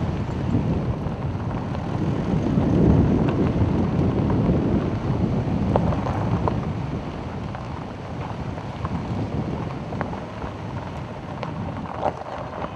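Off-road vehicle driving fast on a gravel dirt track: rumbling tyre and engine noise with scattered small clicks and rattles, and wind buffeting the microphone. The noise is heaviest about three seconds in and eases off later.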